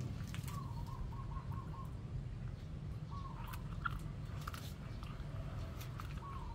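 Puppy gnawing a duck bone: scattered sharp crunches and clicks of teeth on bone. A bird calls in the background in three short wavering phrases, the longest about half a second in, over a steady low rumble.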